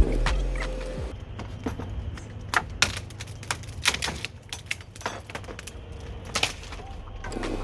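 Scattered light clicks and taps at irregular intervals, a few sharper than the rest.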